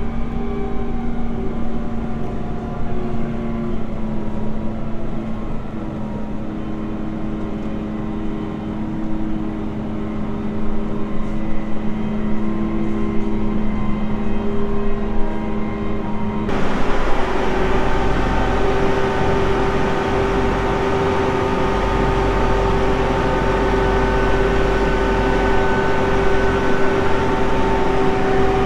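Engine running at a steady speed. About halfway through it cuts abruptly to a different, steadier engine sound with a higher, brighter hum.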